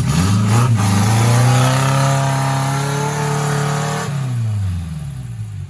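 Off-road 4x4's engine revving hard: the pitch climbs sharply at the start, holds high for about four seconds, then drops away as the throttle comes off.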